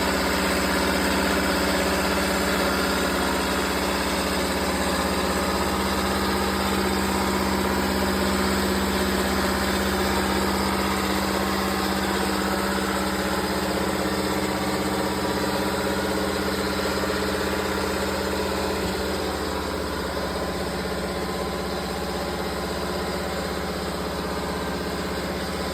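Wabeco CNC lathe running with its spindle at about 1000 rpm: a steady motor hum that gets a little quieter about two-thirds of the way through.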